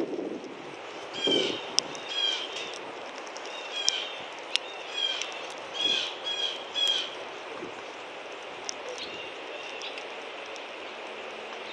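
Small songbird chirps repeated in quick clusters, thinning out after about seven seconds, with a few sharp clicks close by.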